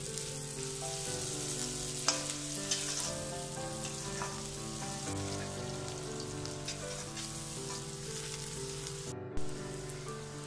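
Vegetables stir-frying in a wok over a high flame: steady sizzling, with a few short clicks of a slotted metal spatula against the pan about two to three seconds in.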